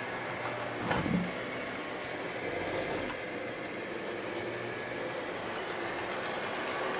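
HO scale model train coaches running along the track, a steady running noise of wheels on rails. A short knock sounds about a second in.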